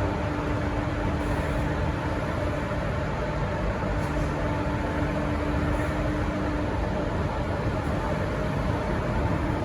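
V/Line N-class diesel locomotive idling at the platform: a steady rumble with a faint held hum that stops about two-thirds of the way through.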